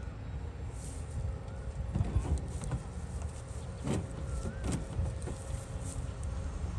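Heavy diesel machinery heard at a distance: the engines of a bogged sugarcane truck and an excavator working beside it run with a steady low rumble and hum, with a few faint knocks and clanks.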